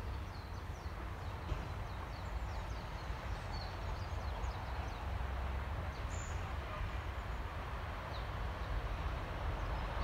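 A flock of small birds calling, many short falling chirps overlapping throughout, over a steady low rumble.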